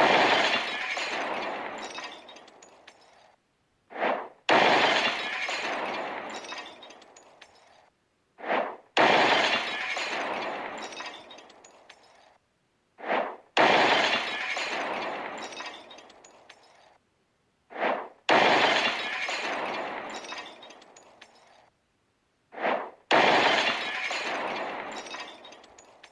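Molotov cocktail sound effect, repeated six times about every four and a half seconds. Each time a short swell comes first, then a sudden glass-bottle smash whose noisy tail dies away over about three seconds.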